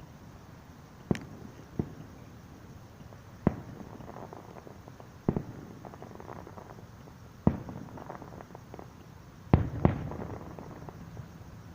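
Aerial fireworks bursting: about seven sharp booms at irregular intervals of one to two seconds, with fainter crackling between them. The loudest two come in quick succession near the end, followed by a rumbling echo.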